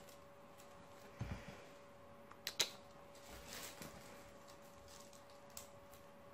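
Kitten batting at a feather wand toy on a chair cushion: faint scattered taps and rustles, a dull thump a little over a second in and a sharp click at about two and a half seconds, over a faint steady hum.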